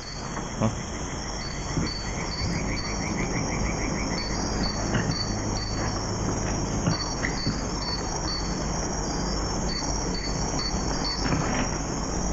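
Crickets chirping in an even, repeating pulse over a low hum and steady background hiss.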